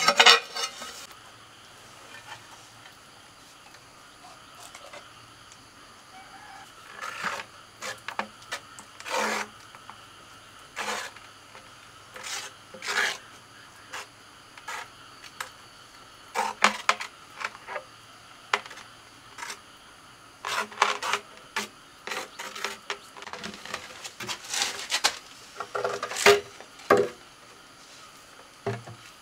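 Hand tiling work: irregular short taps and knocks with some scraping, coming in clusters with quiet gaps between.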